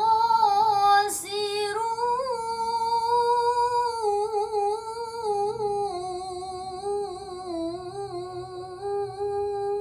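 A girl's voice reciting the Quran in ornamented tilawah style, holding one long melismatic vowel with wavering turns that steps down in pitch about six seconds in. A brief click sounds about a second in.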